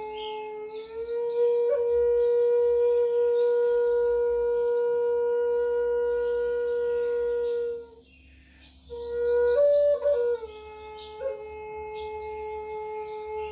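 Flute playing long held notes, sliding up a step about a second in, breaking off for a breath around eight seconds, then returning with a quick higher flourish. A steady low tone sounds underneath, with birds chirping.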